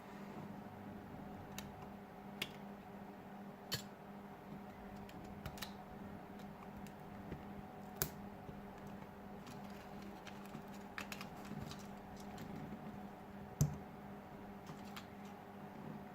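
Scattered light clicks and taps from small tools and phone parts being handled during a phone teardown, over a steady low electrical hum. One louder knock comes near the end.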